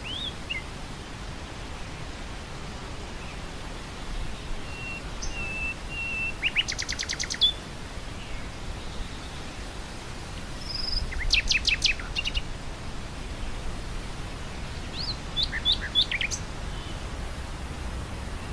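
Nightingale singing in three short phrases of rapid repeated notes, over the steady hiss and low rumble of wind through grassland.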